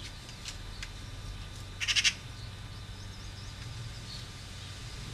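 Magpie giving a short, harsh, rapid chattering rattle about two seconds in, with a couple of single clacks before it. A steady low rumble runs underneath.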